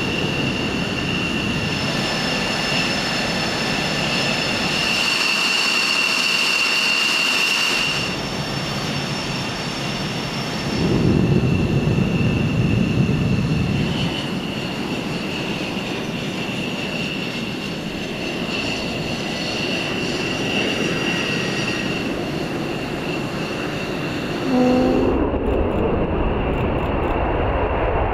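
Saab JAS 39 Gripen jet engine running on the ramp and taxiing with a steady high-pitched whine. Near the end the whine gives way to a deeper jet rumble from aircraft on a distant runway.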